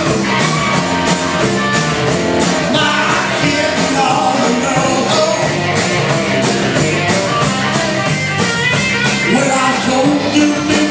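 Live rock and roll band playing: electric guitar, electric bass and drum kit, with a steady beat of drum and cymbal hits.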